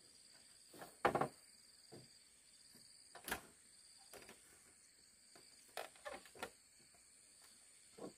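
Scattered sharp knocks and taps, the loudest about a second in and a quick cluster of three past the middle, over a steady high chirring of insects such as crickets.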